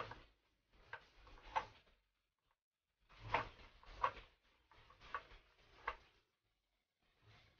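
Gloved hand kneading a minced-pork longanisa mixture in a ceramic bowl: soft squishing of the meat and crinkling of the plastic glove in short strokes, about one or two a second, with brief pauses between.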